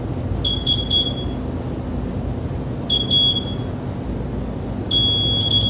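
VPM2 vacuum mixer's control panel sounding its selectable alert tones as the arrow key steps through them: three short groups of quick, high electronic beeps, a couple of seconds apart.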